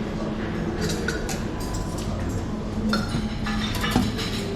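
Dishes and cutlery clinking over a steady low hum, with a few sharp ringing clinks about a second in and a cluster more around three to four seconds in.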